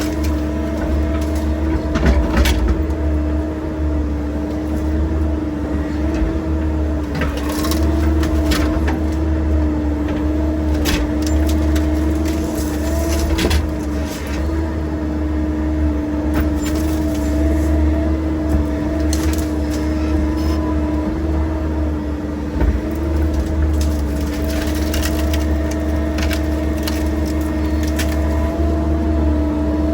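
Excavator's diesel engine running under load with a steady hum and low rumble, while the machine breaks up a tree: repeated sharp cracks and knocks of wood snapping and splintering, in clusters throughout.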